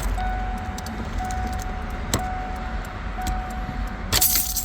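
Car warning chime sounding in a steady repeating beep, about once a second, inside the vehicle. There is a sharp click about two seconds in and a loud metallic jingle near the end, as the ignition cylinder with its keys is worked out of the steering column.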